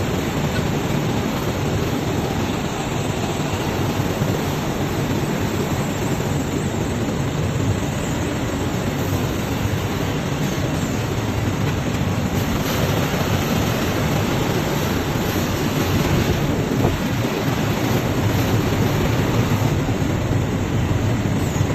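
Steady, loud din of a row of automatic spoon and fork flat-polishing machines with robot arms running. It is a dense, even rush of noise with no distinct rhythm, a little brighter for a few seconds around the middle.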